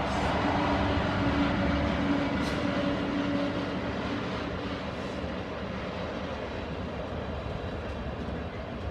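Class 66 diesel-hauled freight train passing at speed, its wagons rumbling steadily over the rails. A hum from the locomotive fades out about three seconds in, and the whole sound slowly dies away.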